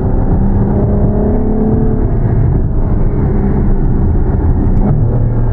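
Ferrari V12 grand tourer's engine and exhaust heard from inside the cabin while driving, a steady drone whose note drops lower about two seconds in.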